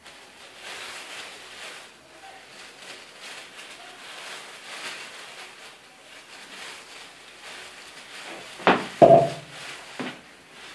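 Plastic-gloved hands and a small brush rustling and scraping through wet, dye-soaked hair, with a few sharp knocks near the end.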